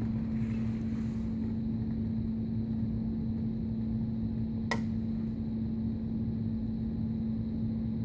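Steady low electrical hum with room rumble, and a single sharp click about halfway through.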